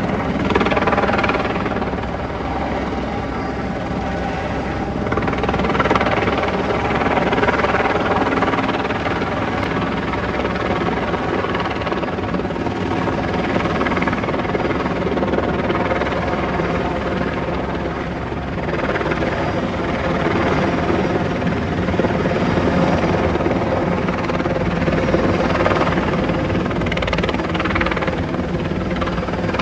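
Light helicopter circling overhead, its steady engine and rotor noise swelling and fading every several seconds as it comes nearer and moves away.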